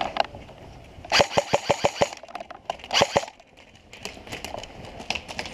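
Airsoft electric rifle firing rapid bursts: sharp clicks at about eight a second, one burst of under a second and a shorter one about a second later.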